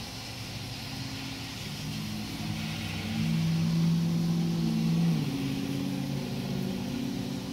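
Cars driving along a rain-soaked street: a steady hiss of rain and tyres on wet pavement, with a low engine drone that grows louder in the middle and then fades.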